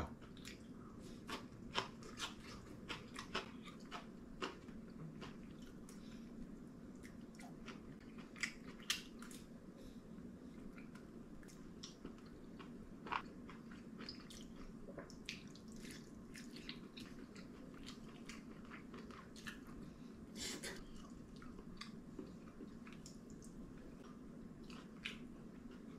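A person eating at a table: faint chewing and scattered light clicks of chopsticks and a spoon against ceramic dishes, over a steady low room hum.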